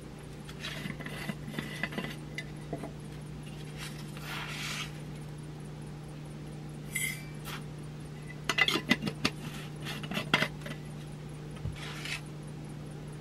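Glass jars and their lids being handled at a kitchen counter while making instant coffee: unscrewing, light clinks and scrapes, with a run of quick clicks about two-thirds of the way through, over a steady low hum.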